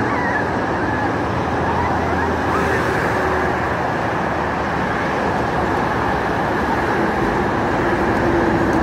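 Steady noise of heavy road traffic on a multi-lane highway.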